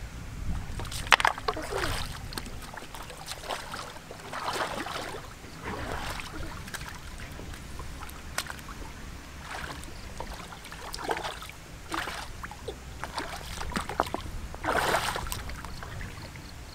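Shallow stream water splashing and sloshing in repeated bursts as hands reach and move through it among the stones, the strongest about a second in and near the end, over a constant low rumble.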